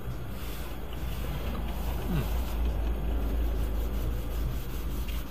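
Strong wind gusting against a tent trailer's canvas: a steady low rumble that swells a little after the first second.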